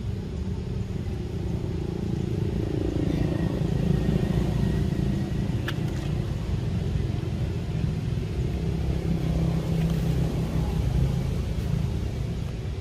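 Low, steady engine rumble, a little louder from about two seconds in, with one sharp click near the middle.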